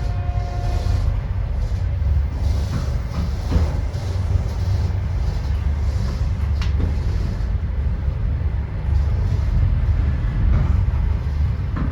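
Passenger train running: a steady low rumble with a few sharp knocks, typical of wheels over rail joints.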